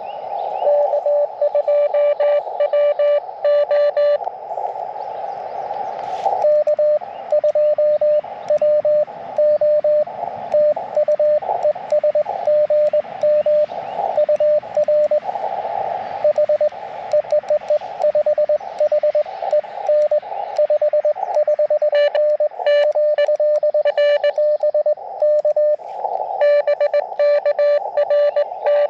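Morse code (CW) on 30 meters from an Elecraft KX2 transceiver: a single beep tone keyed on and off in dits and dahs over a steady hiss of band noise through the narrow CW filter. The keying stops for about two seconds a few seconds in, leaving only the hiss. Sharper, louder bursts of code come at the start and again near the end.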